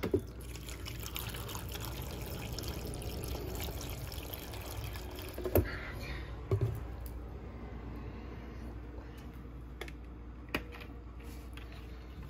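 Cranberry juice poured into a blender jar, a steady pour for about six seconds. Two sharp knocks come around the middle, with a few lighter clicks later as containers are handled.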